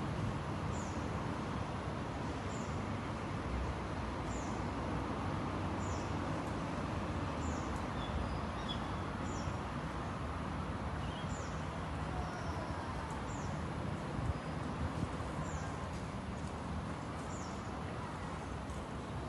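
Steady outdoor background noise, with a short high falling chirp repeating about every two seconds.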